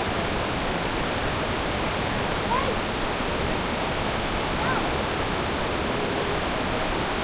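Steady rushing roar of a waterfall's falling water, an even noise with no breaks.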